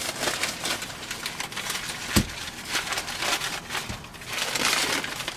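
Brown paper wrapping rustling and crinkling in uneven bursts as an item is unwrapped by hand, with one sharp knock about two seconds in.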